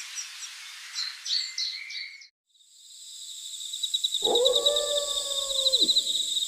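A single long canine howl about four seconds in, holding its pitch and then dropping away at the end, over a steady high insect trill of night crickets.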